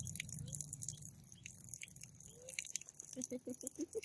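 A stream of water pouring and splattering onto a baby macaque's wet fur and the concrete, with small drips and splashes. Near the end comes a quick run of about six short, low calls.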